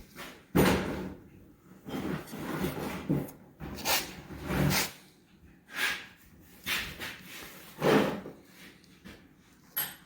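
Irregular clunks and knocks of metal engine parts being handled and set down, the loudest just after the start and again near the end.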